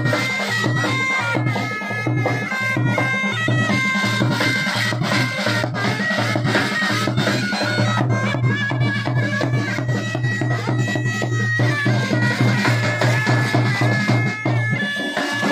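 Mashak, the Rajasthani folk bagpipe, playing a stepping melody over a steady low drone, with a dhol drum beating along.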